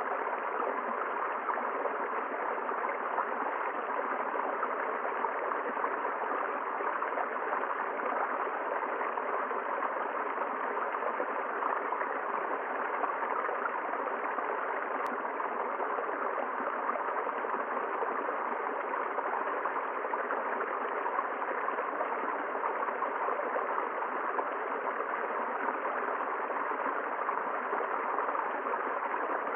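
River water flowing steadily, an even rushing and gurgling of water that never changes.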